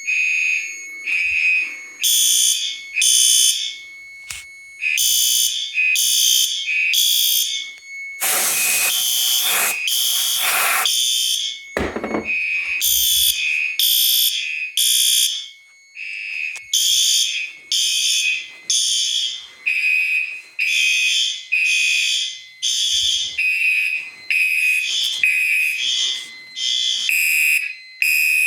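Fire alarm horns sounding in alarm, their pulses falling into groups of three, with several horns not quite in step. A loud burst of noise lasts about three seconds, around eight seconds in.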